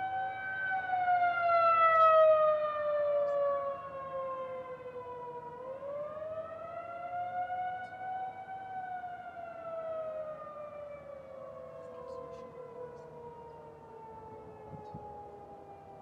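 Federal Signal 2001-130 rotating outdoor warning siren sounding the attack signal, a wavering tone. Its pitch falls, rises again about six seconds in, then falls slowly and fades toward the end. The sound swells and fades as the horn turns.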